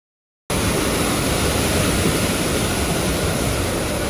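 Mountain meltwater stream rushing and splashing over rocks: a loud, steady wash of water noise that cuts in suddenly about half a second in.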